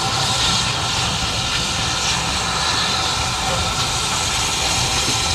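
BR Standard Class 4MT 2-6-4 tank steam locomotive approaching, a steady rumble with a hiss of steam over it and no distinct exhaust beats.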